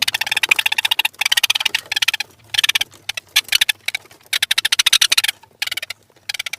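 Animal call of rapid clicking trills, repeated in bursts of about half a second to a second with short gaps between them.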